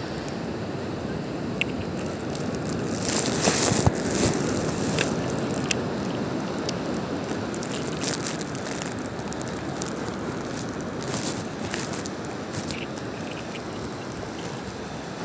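Beach ambience: a steady rush of wind and surf, louder for a moment about three seconds in, with scattered light clicks.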